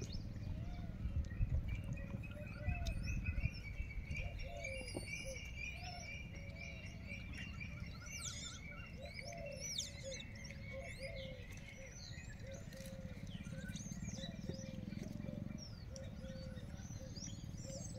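Wild birds chirping and calling, a chorus of many short overlapping calls, under a low rumble that is louder in the first few seconds.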